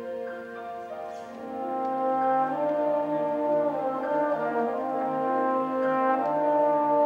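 Solo trombone playing a slow melody of long held notes over an orchestral accompaniment, swelling louder about a second and a half in.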